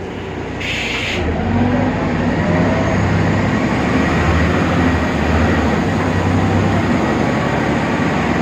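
Inside a BredaMenariniBus Avancity Plus city bus: the Deutz diesel engine and drivetrain running, growing louder about a second and a half in and rising slightly in pitch as the bus gets under way. A short hiss comes about a second in.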